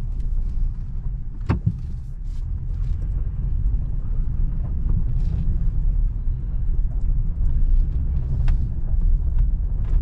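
Toyota Tundra pickup rolling slowly along a gravel forest road, heard from inside the cab: a steady low rumble of engine and tyres on gravel. A sharp knock comes about a second and a half in, and a lighter click near the end.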